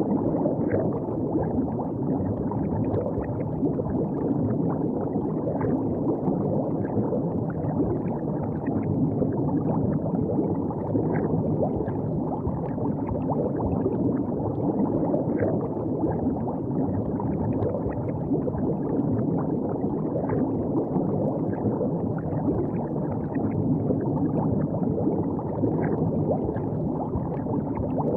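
River water flowing and gurgling steadily, a continuous low, dull wash of water sound.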